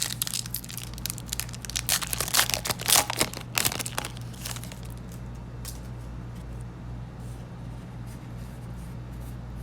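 A Yu-Gi-Oh! booster pack's foil wrapper being torn open and crinkled: a dense run of sharp rips and crackles through the first four seconds or so, then only faint rustling.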